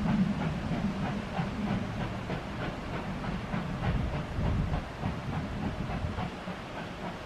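Passenger train moving away along the line: a steady low rumble from the coaches' wheels with a rhythmic clicking over the rail joints.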